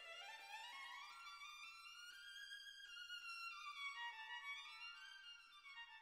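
Quiet background music: a violin melody that climbs in quick steps, then falls back and rises again.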